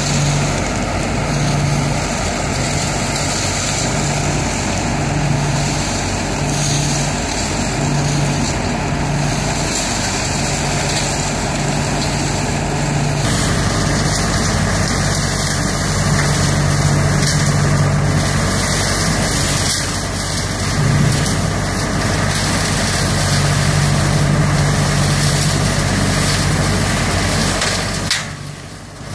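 ODB 650 leaf vacuum running steadily at working speed, its engine and fan drawing raked dry leaves up through the intake hose and blowing them into the truck box.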